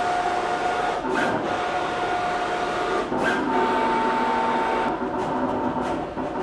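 Summa vinyl cutting plotter running: its motors whine in steady tones that jump to a new pitch every second or two as the cutting head travels and the vinyl is fed, with a few short hissing strokes.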